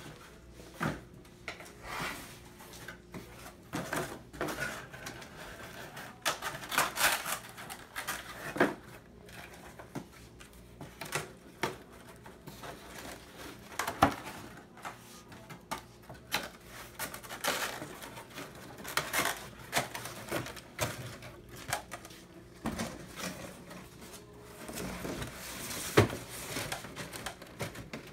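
Corrugated cardboard being handled as display trays and center supports are folded and fitted together: irregular rustling and scraping with scattered clicks, and two sharp knocks, one about halfway through and one near the end.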